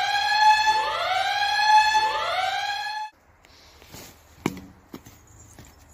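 Three siren-like whoops, each sliding quickly up in pitch and then holding, one after another. They cut off abruptly about three seconds in, leaving a few faint knocks.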